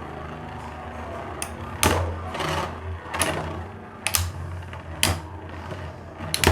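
Two Beyblade spinning tops whirring in a plastic stadium, a steady low hum broken by sharp clacks as they collide, about seven hits, coming quicker near the end.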